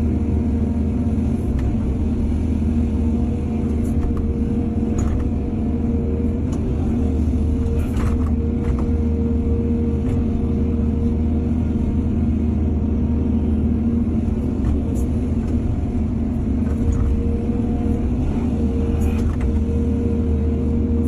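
Excavator's diesel engine running steadily with a deep drone and a steady whine above it, with a few sharp knocks spread through it.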